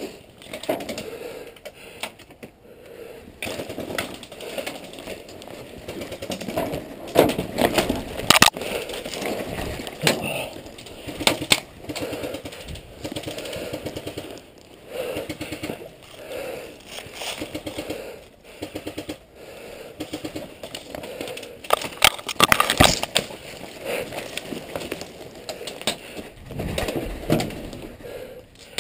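Rustling and knocking of a player moving low through brush and along corrugated metal, clothing and gear scraping close to a helmet camera, with many sharp clicks, loudest about seven seconds in and again near twenty-two seconds.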